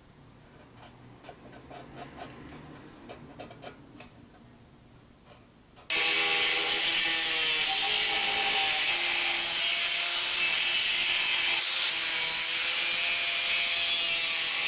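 Faint clicks and taps of handling, then about six seconds in a power grinder starts grinding metal: a loud, steady grinding noise with a motor whine that sags a little under load, stopping abruptly near the end.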